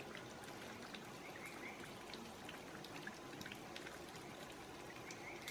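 Steady, faint trickling water-like noise, with many small scattered clicks and a few short high chirps.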